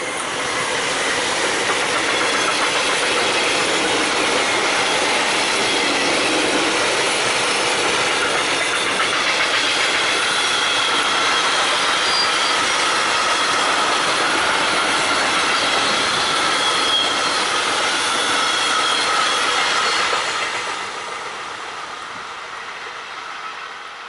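Long freight train of open high-sided wagons passing close by: a steady rush and clatter of wheels on rail, with thin high squealing tones from the wheels over it. It builds up within the first second and drops off about 20 seconds in as the last wagons go by, fading away.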